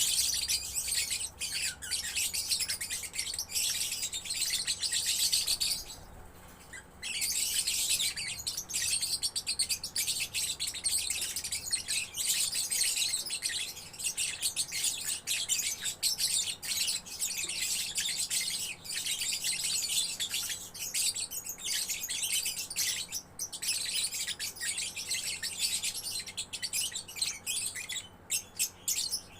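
Young lovebird singing in long, unbroken runs of rapid high chattering, the sustained 'gacor' song that lovebird keepers prize. The song pauses for about a second around six seconds in and breaks briefly a few times near the end.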